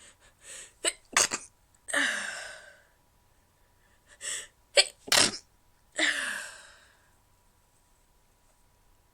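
A woman stifling sneezes, twice. Each time a couple of short catches lead to a few sharp, choked bursts, then a long breathy exhale that fades out.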